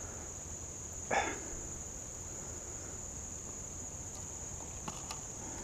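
Steady high-pitched buzz of an insect chorus, like crickets, running without a break. A brief voice-like sound about a second in and a few faint clicks near the end.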